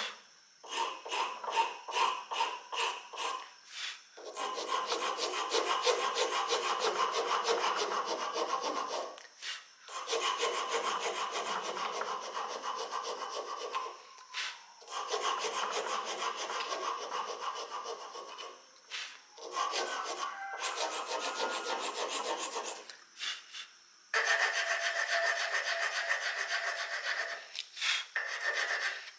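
Hand abrasive rubbing, as in filing or sanding by hand. Short quick strokes come first, then long stretches of steady rubbing broken by brief pauses.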